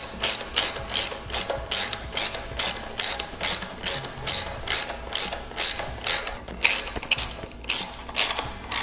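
Hand socket ratchet clicking in quick, even back-and-forth strokes, about two and a half a second, as breather bolts are run into the cylinder head; the clicking stops near the end.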